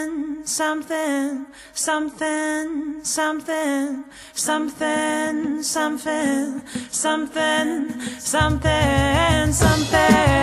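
Background music: a song sung by voices with little or no accompaniment, with a bass line and beat coming in about eight seconds in.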